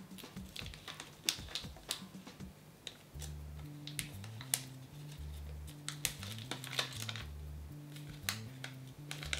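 Light crackling and clicking of a sheet mask's outer layer being peeled off the face by fingertips. Quiet background music with a repeating low bass line comes in about three seconds in.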